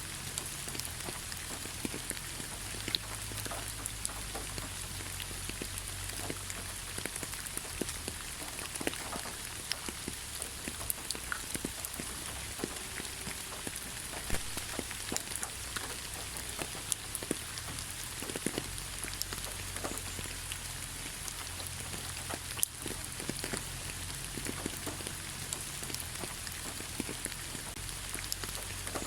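Gentle rain falling on leaves: a steady hiss of rain with many scattered, irregular drop ticks.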